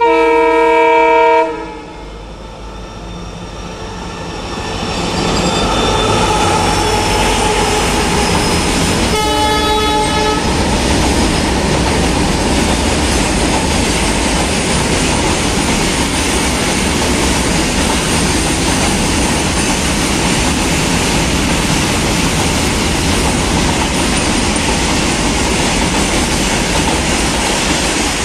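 WDG4D diesel locomotive sounding its horn in a loud chord-like blast lasting about a second and a half, then a shorter second blast about nine seconds in. From about five seconds in there is the steady noise of wheels on rails as loaded goods wagons roll past.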